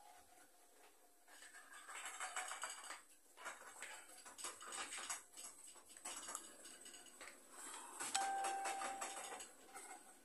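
Kitchen clatter of utensils and dishes on the counter, then a single electronic beep held for about a second, eight seconds in.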